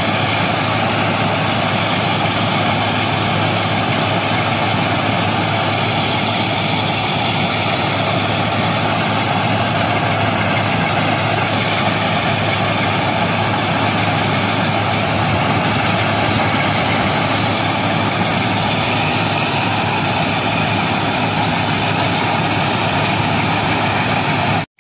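Railway ballast cleaning machine working on the track: its diesel engines and conveyors keep up a loud, steady mechanical din without a break. The sound cuts off suddenly at the very end.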